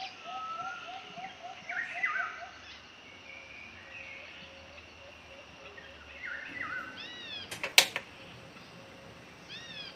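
A single sharp click about three quarters of the way through, as the knob of a portable butane gas stove is turned to light it. Short chirping animal calls sound in the background before and after it.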